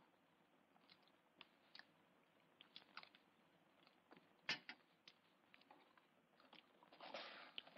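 Faint eating sounds: quiet chewing and scattered small clicks, with one sharper click about halfway through and a short, denser patch of noise near the end.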